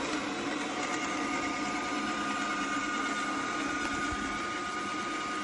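Robot vacuum cleaner running: a steady motor whine over the hiss of its fan.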